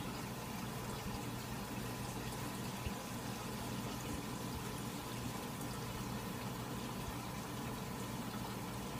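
Water bubbling steadily in a tub of goldfish fry, over a constant low hum.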